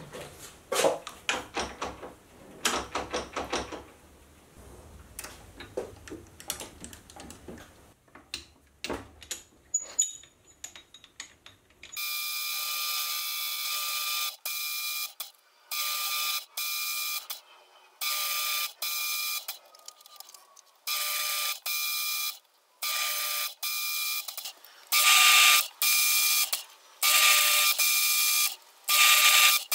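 Hafco Metalmaster metal lathe single-point cutting a reverse thread on a stainless steel shaft: from about twelve seconds in, repeated short runs of the lathe with a steady whine, each starting and stopping abruptly. Before that, only faint scattered clicks and knocks.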